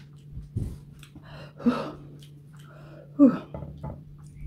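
Mouth sounds of someone eating green apple: chewing with faint crunches, and two short loud vocal sounds, a breathy gasp or hum about a second and a half in and another just past three seconds that falls in pitch. A steady low hum runs underneath.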